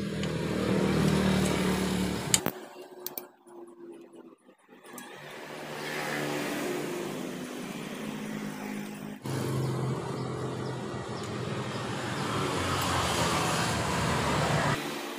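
A motor running steadily. It cuts off abruptly about two and a half seconds in, comes back, changes suddenly about nine seconds in, and stops abruptly near the end.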